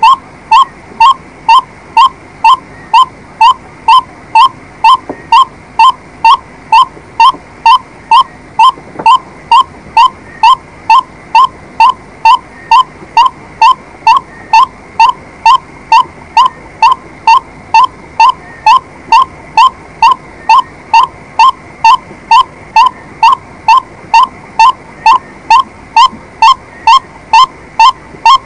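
White-breasted waterhen calling: one short note repeated about twice a second, evenly and without a break.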